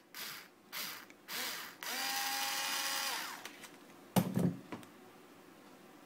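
Cordless drill-driver with a Torx bit undoing a small screw: three short trigger bursts, then a steady motor whine for just over a second that falls in pitch as it winds down. A couple of sharp knocks about four seconds in.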